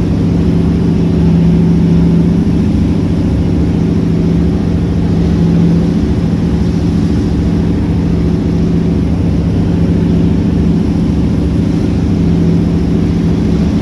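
A steady engine drone with a constant low hum that does not change in pitch.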